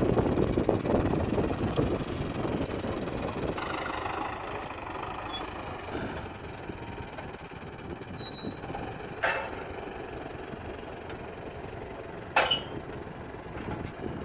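Tractor's diesel engine running, louder for the first few seconds while the tractor is driven, then idling steadily. Two sharp metal clanks, about nine and twelve seconds in, as the mounted sprayer's boom arms are pulled open by hand.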